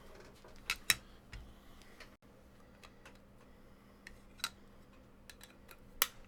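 Trading cards and plastic card holders handled on a table: a few short, sharp clicks and taps, two close together about a second in and the loudest near the end.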